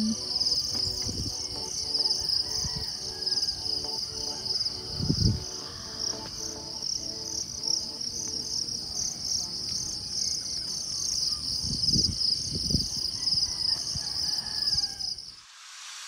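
A steady, high chorus of night insects, pulsing quickly, with a few low thumps of wind or handling on the microphone. It cuts off suddenly near the end.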